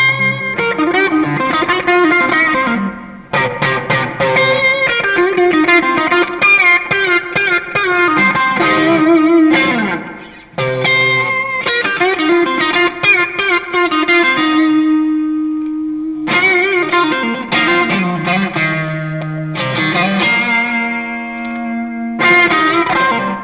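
Fender Stratocaster Deluxe Roadhouse electric guitar played lead: quick single-note runs with string bends and a few long held notes, pausing briefly twice.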